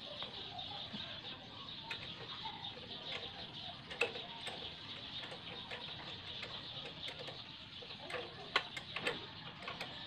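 Light metallic clicks and taps of a motorcycle front fork tube and its clamp parts being handled and fitted, a sharp click about four seconds in and a few more near the end, over a steady high hiss.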